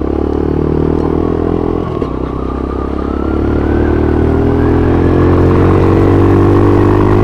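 Motorcycle engine running under way. There is a brief dip about two seconds in, then the pitch rises as it accelerates and holds steady toward the end.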